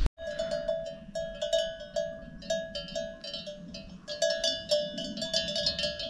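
A single livestock bell clanking irregularly on one pitch, about three strokes a second, as a grazing animal moves its head; the strokes come thicker in the second half.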